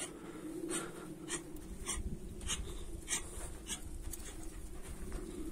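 Kangal shepherd dog panting softly, with a breathy stroke about every 0.6 seconds that fades out a little over halfway through.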